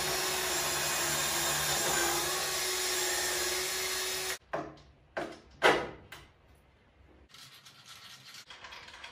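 Bosch cordless drill running steadily in a drill press stand as its bit bores into a wooden bench, for about four and a half seconds before it stops. A few sharp knocks follow, then faint handling noise.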